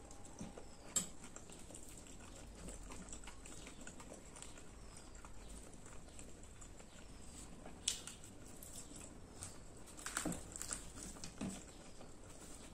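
Close-miked mukbang eating sounds: soft chewing and mouth noises of someone eating chole bhature. A sharp clink comes about a second in as a steel spoon is set down on the steel plate, another near eight seconds, and a cluster of crackly tearing sounds around ten to eleven seconds as the fried bhatura is torn by hand.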